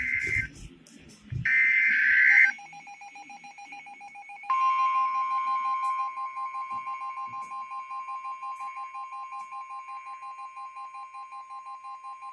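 Emergency Alert System signal tones: two short bursts of screechy digital data tones, then a rapidly pulsing electronic alert tone. About two seconds later a steady high tone joins it, and both carry on to near the end.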